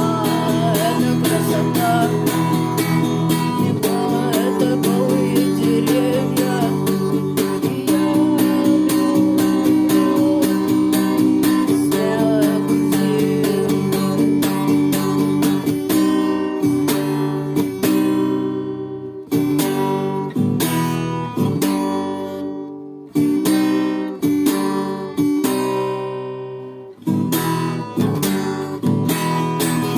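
Instrumental rock music: strummed electric and acoustic-sounding guitars with bass over a regular drum-machine beat. From about halfway the chords come in short strummed blocks that stop abruptly several times.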